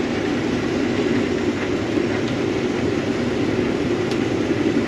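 Steady, unbroken low drone of running farm machinery.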